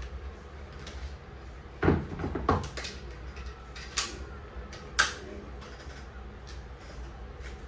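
A handful of sharp knocks and clunks over a steady low hum: a quick cluster about two seconds in, then two single knocks a second apart.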